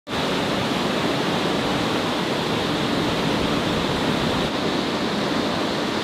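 A waterfall's white water rushing: a steady, even wash of water noise.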